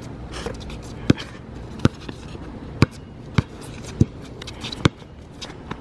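Basketball being dribbled on a hard outdoor court: six sharp bounces, each well under a second after the last, at an uneven pace.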